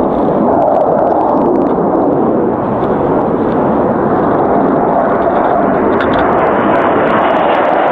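Loud, steady jet roar of a low-flying twin-engine F-15 fighter approaching through the valley.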